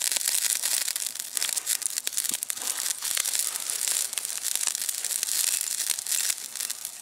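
Wood campfire crackling, a steady hiss full of small sharp pops, with bratwursts sizzling on a wire grill rack over the flames.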